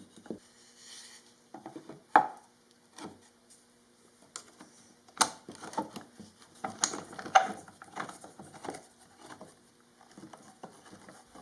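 Wooden pieces being handled and set together for a glue-up: irregular knocks, clicks and rubbing, loudest around two, five and seven seconds in.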